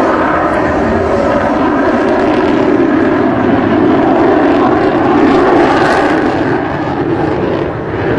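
Sukhoi Su-37 fighter's twin jet engines heard in flight as a steady, loud noise, growing louder around the middle and easing off slightly near the end.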